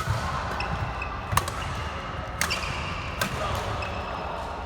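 Badminton rally: rackets strike the shuttlecock with sharp hits about a second apart, four in all, over the hubbub of a sports hall.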